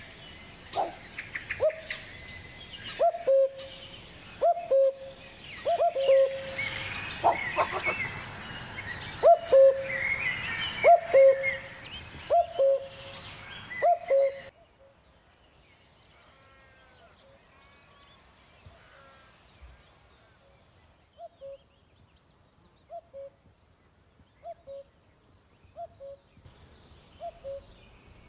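Birdsong: a short, low, falling call repeated roughly every second and a half, with several other birds chirping and trilling over it. About halfway through, the sound cuts to a much quieter recording in which the low call keeps repeating with only a few faint chirps.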